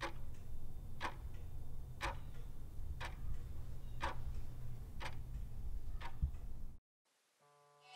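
Clock ticking once a second, seven even ticks over a low steady hum, cutting off abruptly near the end.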